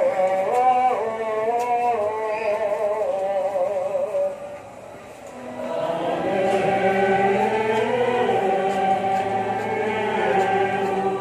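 Church choir and congregation singing a slow, chant-like hymn. One phrase ends about four seconds in, and after a short pause the singing comes back fuller.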